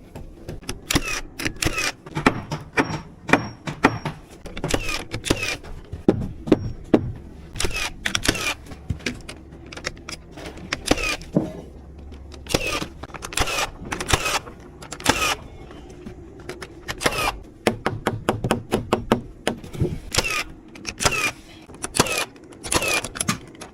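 Nails being driven into framing lumber: sharp strikes that come in quick bursts of several, with short pauses between.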